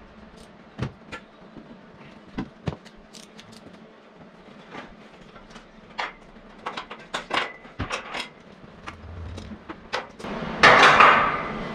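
Scattered clinks and knocks of handling in a workshop, among them a wooden chair set down beside an aluminium frame and climbed onto. A loud rushing noise about a second long comes near the end.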